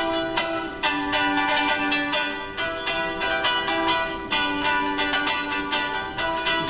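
Ukulele strummed fast and evenly in a steady rhythm, an instrumental break with no singing.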